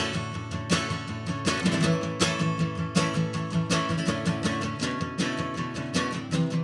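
Guitar music with fast, steady strumming.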